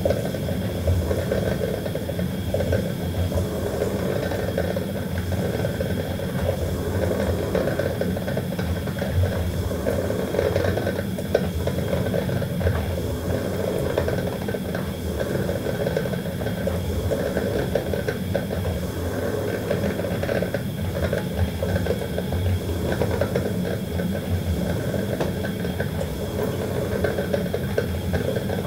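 Coffee maker running steadily, a continuous, unchanging sound with a low hum under a fluttering, noisy texture.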